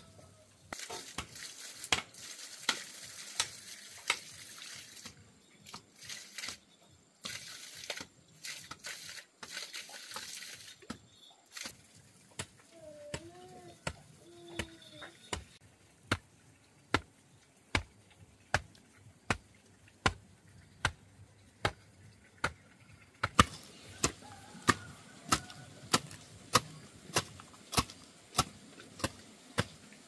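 A hand tool striking over and over, about one to two blows a second and quickening near the end. There are two stretches of hissing noise in the first half and a couple of short warbling calls midway.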